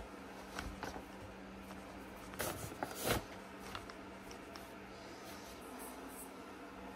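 Flour being shaken from a flour bag onto a stainless-steel counter: soft rustles and light patters, the loudest two about two and a half and three seconds in, over a steady low hum.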